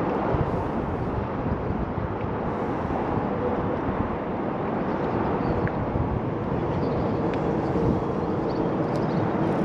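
Small fishing boat's motor running steadily, with wind and water noise around it.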